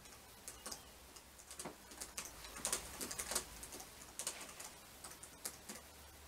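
Typing on a laptop keyboard: irregular keystrokes in short runs, busiest in the middle.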